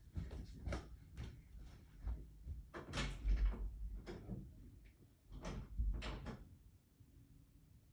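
A string of knocks and thumps from a person getting up and moving off, with a door being opened and shut; the loudest thumps come about three and six seconds in, and the sounds die away after that.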